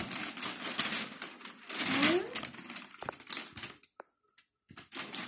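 Wrapping paper being torn and rustled off a large gift box, in rough bursts that die away about four seconds in. A short child's voice sound comes about two seconds in.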